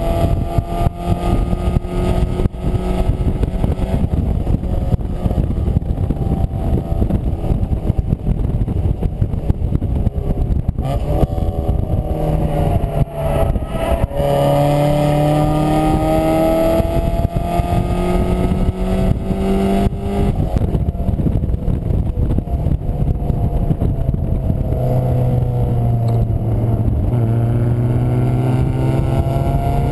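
Mazda MX-5's four-cylinder engine heard from inside the open cockpit at speed, revving up with a climbing pitch that drops back at each gearchange or lift, several times over. Heavy wind rush over the open top sits under the engine note.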